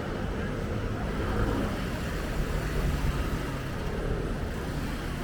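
City street ambience: a steady, low rumble of road traffic.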